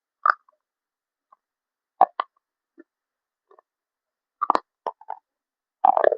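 A delivery package being handled for ASMR: a string of separate short crinkles and taps, several seconds apart, each cutting off sharply.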